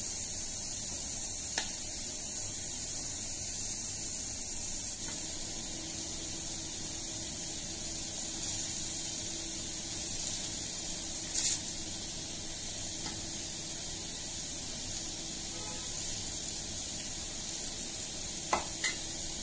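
Cornflour-coated beef pieces deep-frying in hot oil in a steel kadai: a steady sizzle, with a few short clicks, one louder near the middle and two close together near the end.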